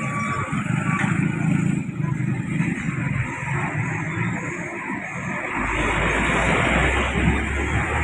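Road traffic: a motorcycle engine close by, fading as it rides off, then a deep engine rumble building from about five and a half seconds in as heavy trucks approach.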